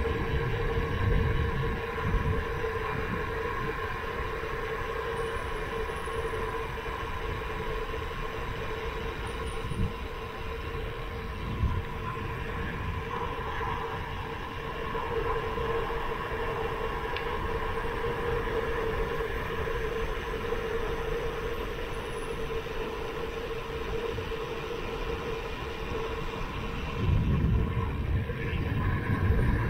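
Gravel bike rolling fast on asphalt, a steady hum from the tyres and drivetrain, with wind buffeting the handlebar camera's microphone, strongest near the start and again near the end.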